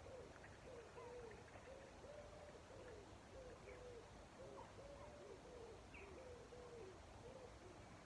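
Faint cooing of a pigeon: a run of soft rising-and-falling notes, about two a second. A few thin, high bird chirps come in between.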